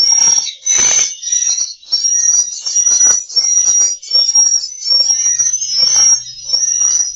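Swiftlet lure sound: edible-nest swiftlet twittering chirps over a high, thin whistle-like note that repeats about once a second.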